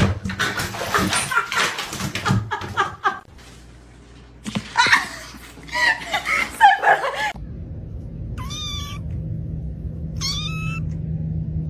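A cat meowing several times, ending in two short meows over a steady low hum, after a burst of clicking and rustling.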